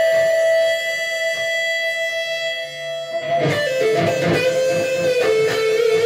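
Les Paul-style electric guitar playing a lead line: a note bent up and held for about three seconds, then a quick run of notes stepping down, ending on a held note with vibrato.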